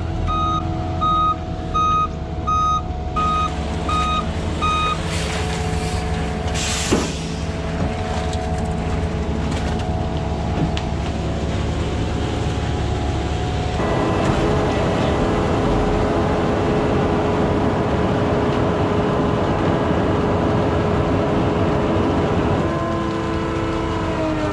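Concrete mixer truck backing up, its reversing alarm beeping steadily over the diesel engine for the first few seconds, then a short air-brake hiss about seven seconds in. About fourteen seconds in, diesel engine noise rises to a louder steady run, then winds down in pitch near the end.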